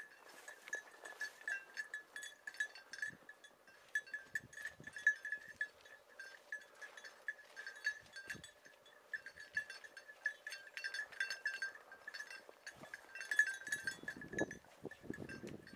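Small bells on hunting beagles' collars jingling irregularly as the dogs move about working a hare's scent trail, with a rustle of brush near the end.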